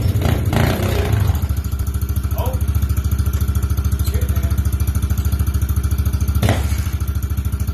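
Small pitbike engine idling with a steady, even putter, and one brief knock about six and a half seconds in.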